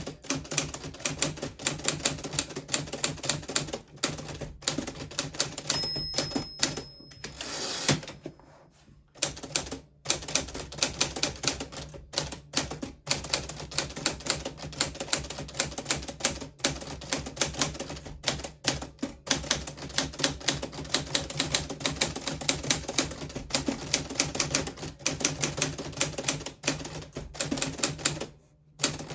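1940s Smith Corona Silent manual typewriter being typed on steadily, in quick irregular keystrokes. The typing stops for a pause of about two seconds near eight seconds in, then carries on.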